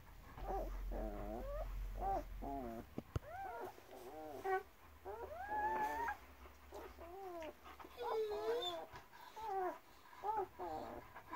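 A string of short whimpers and squeaks from German Shepherd dogs, the mother and her week-old nursing puppies, a dozen or so calls bending up and down in pitch, with one longer whine about five seconds in.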